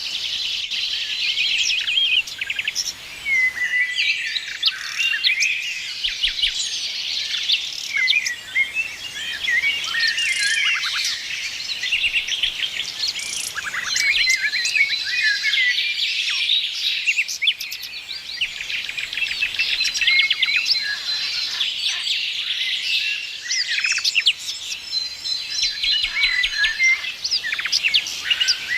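A dawn-chorus-like mix of many songbirds chirping and trilling at once, dense and overlapping, with quick rapid-fire trills and short whistled notes.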